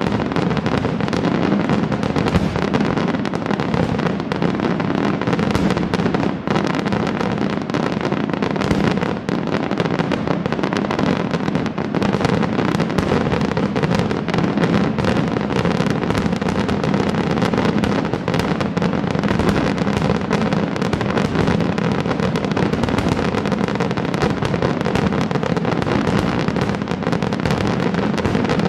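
Aerial firework shells from a Palmese Fireworks display bursting in a dense, continuous barrage, the bangs and crackle running together with no pauses.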